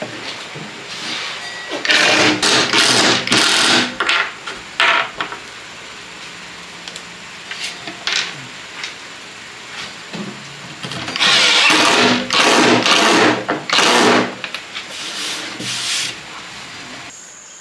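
Cordless drill boring into a wooden tabletop in short runs: a cluster of bursts about two seconds in, a longer series around the middle, and a few brief ones between.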